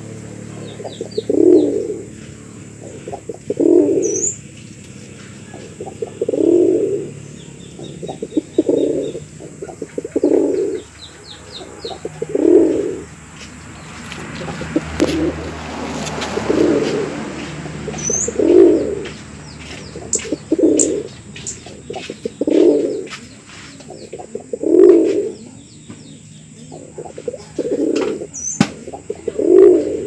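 Male domestic pigeon cooing in courtship toward a female, one low coo about every two seconds. Faint high bird chirps are heard now and then in the background.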